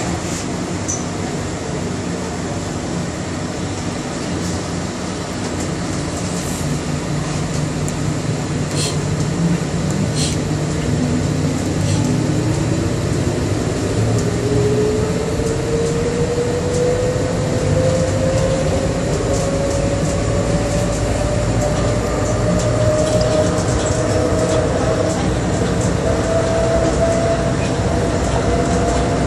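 Bombardier Innovia APM 100 people-mover car pulling away and accelerating: a steady rumble of its rubber tyres running on the guideway, with an electric motor whine that starts about a third of the way in and rises steadily in pitch as the car gathers speed. A few short clicks come just before the whine begins.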